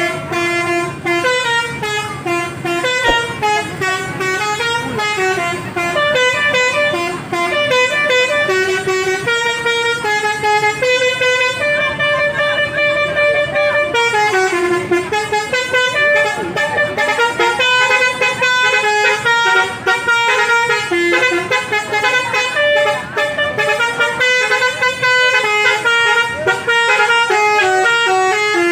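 Bus 'basuri' musical horn playing a quick melody, one note stepping to the next several times a second without a break.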